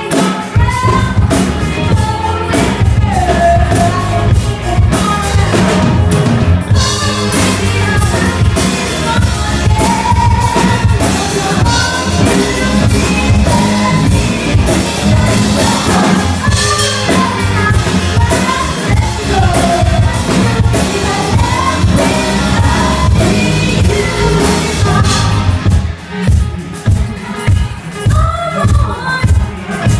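Live band playing a song with a woman singing lead over electric bass, keyboards and a drum kit. Near the end the bass thins out and the drums come through as sharper, separate hits.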